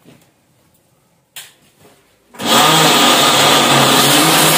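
A short knock, then about two and a half seconds in an electric mixer grinder (mixie) starts and runs loud and steady, grinding peeled garlic cloves into a paste.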